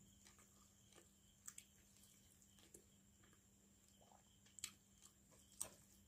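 Faint wet eating sounds of rice and fish curry eaten by hand: chewing and fingers squishing the rice, with a few sharp wet clicks, the loudest near the end, over a faint steady electrical hum.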